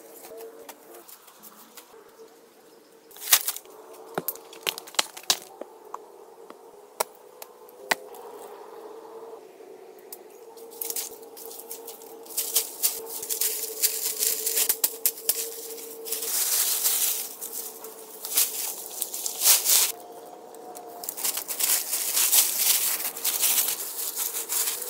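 Dry leaves rustling and crackling in repeated bursts as they are gathered and dropped in armfuls, after a few sharp knocks of bamboo poles earlier on. A steady faint hum lies underneath.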